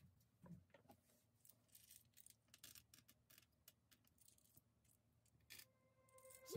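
Very faint, scattered light clicks and taps of chocolate chips being picked from a small glass bowl and dropped onto cake batter in metal tins, with music fading in near the end.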